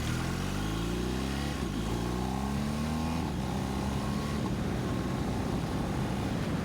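BMW R 1250 GS boxer-twin engine accelerating hard, its pitch climbing, then dropping at two gear changes about a second and a half and three seconds in. After that it settles into a steady run under rushing wind noise.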